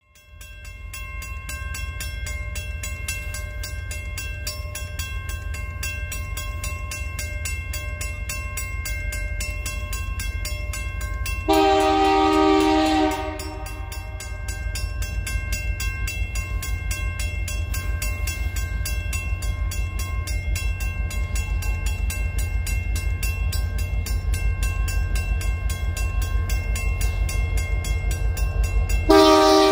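Railroad crossing bell ringing steadily, with a low rumble underneath. The horn of a QGRY SD70MAC diesel locomotive sounds one blast of about a second and a half near the middle, and starts another just before the end.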